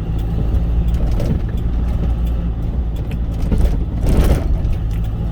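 Cargo truck's engine running steadily while driving, a low drone heard inside the cab, with a brief hissing swell about four seconds in.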